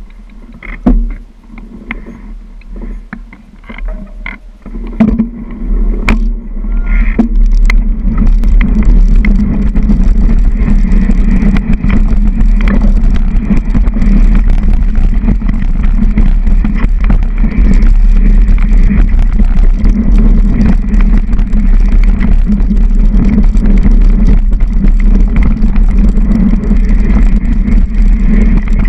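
Mountain bike riding down a dirt forest trail, heard from a handlebar-mounted camera: scattered clicks and knocks at first, then, about eight seconds in, as the bike gathers speed, a loud continuous rush of wind on the microphone and the bike rattling over the ground.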